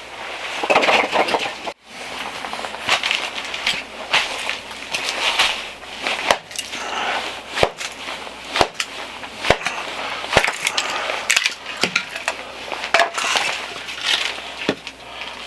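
Aspen firewood being worked by hand: repeated scraping and crunching with cracking of wood and several sharp knocks.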